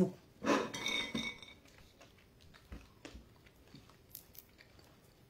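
A person chewing roasted peanuts: faint, scattered crunches and clicks. A brief voice-like sound about half a second in is the loudest thing.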